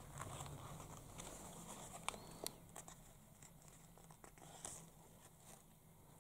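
Faint scratching and light clicks of fingernails picking at the edge of a paper sticker, trying to peel it off its backing, with a few sharper ticks about two seconds in.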